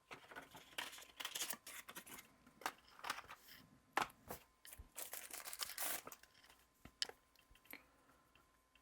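Plastic wrapping crinkling and tearing in irregular bursts as it is handled and pulled open, dying away near the end.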